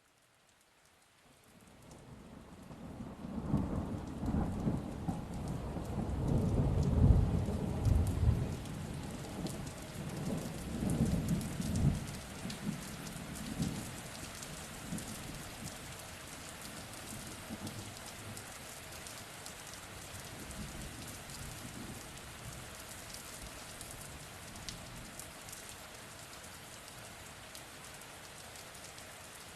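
Rain fading in, then thunder rumbling in several rolls from about three seconds in, loudest around seven seconds and dying away after about twelve. Steady rain falling on surfaces carries on after the thunder.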